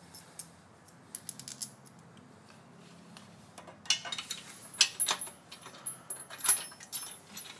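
Small metal parts clinking and clicking as screws and steel bracket pieces are handled and fitted, a few light clicks at first, then a busier run of sharper clinks from about halfway.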